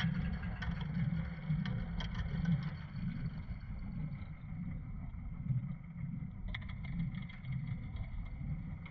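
Sampled solo-string effect textures, 8Dio CASE Strings violin and cello textures layered and run through a moving filter: a murky, low rumbling drone with scattered faint clicks, sounding underwater-ish.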